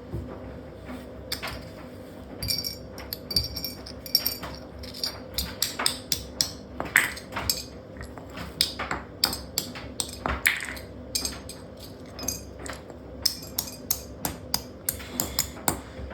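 Washing machine running with a brick tumbling loose in its drum: irregular sharp bangs and clinks over the steady hum of the machine, coming faster near the end.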